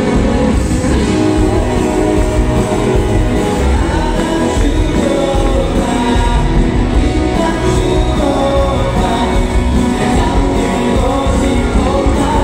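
Live band music with a male vocalist singing into a microphone, heard from the audience in a large hall.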